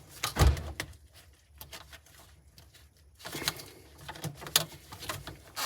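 A single thump about half a second in, then scattered clicks and knocks from about three seconds on: the parts of a sink's P-trap drain being handled and adjusted by hand.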